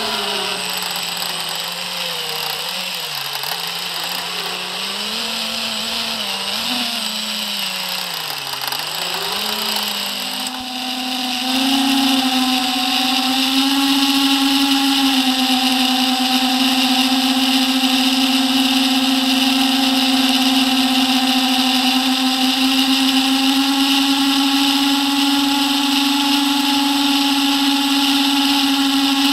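FPV quadcopter's brushless motors and propellers whining, heard from the onboard camera. The pitch wavers up and down with the throttle at first. About ten seconds in it jumps to a louder, higher whine that holds steady as the quad climbs.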